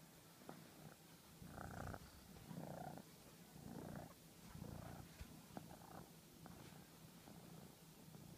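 A domestic cat purring softly right at the microphone, swelling about once a second with its breathing, with a few faint clicks. The cat is purring while it suckles and nuzzles a fleece blanket.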